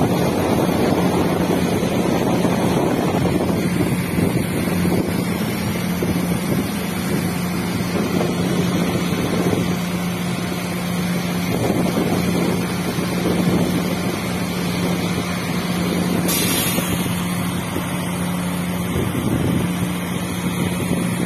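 Workover rig machinery running steadily with a constant hum, with gusts of wind on the microphone.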